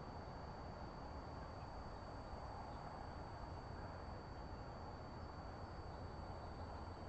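Steady low background noise with a faint, constant high-pitched whine, and no distinct calls or other events.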